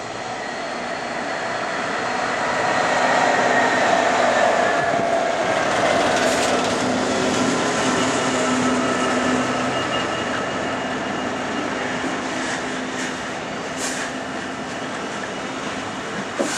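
EWS Class 66 diesel freight locomotive passing close by, its engine drone swelling to its loudest a few seconds in. Then its train of open box wagons rolls past with a steady running noise, with a couple of sharp wheel clicks near the end.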